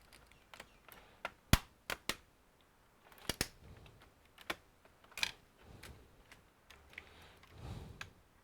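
Irregular sharp plastic clicks and taps from a Dell Inspiron 5558 laptop's case and parts being handled during disassembly, the loudest about one and a half seconds in.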